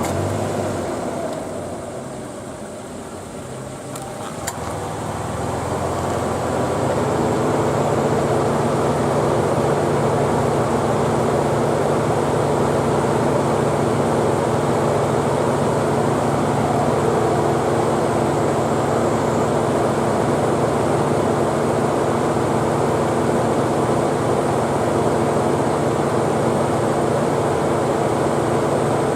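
Nissan Elgrand E51 running with its air conditioning on: a sharp click a little over four seconds in, then a steady mechanical hum with several held tones that builds over a couple of seconds and holds. This is the abnormal air-conditioning noise whose cause the dealer could not find.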